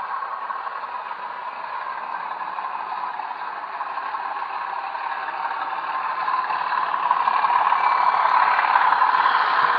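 Model railway train running along the track: a steady whirring and rattling of motor and wheels that grows louder about seven seconds in.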